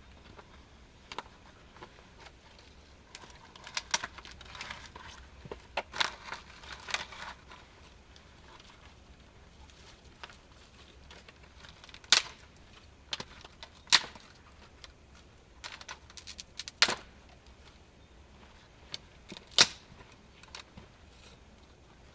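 Sporadic sharp clicks and knocks with bursts of rustling, irregular and unrhythmic; the loudest single clicks come in the second half.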